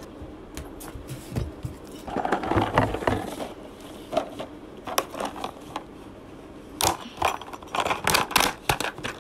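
Hands rummaging in a small box of odds and ends: small objects clicking, rattling and knocking against each other and the box. A cluster of rustle and clatter comes about two to three seconds in, and a quick run of sharp clicks and knocks near the end.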